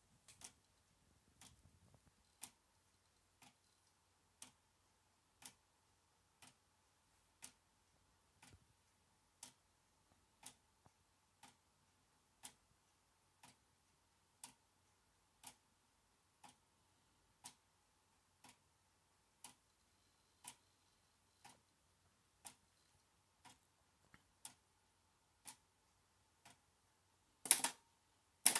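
Quiet, evenly spaced ticks about once a second, then near the end about a second of loud mechanical rattling as the TRS-80 four-pen printer's pen mechanism moves.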